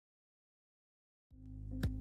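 Silence, then background music starts about two-thirds of the way in, with a low bass and a held tone and a sharp percussive tick near the end.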